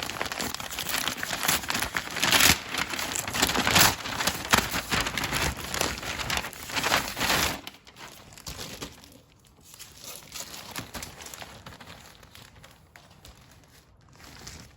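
Plastic packaging bags crinkling and rustling as they are handled and opened. The rustling is loud for the first seven and a half seconds or so, then drops to faint, scattered handling noises.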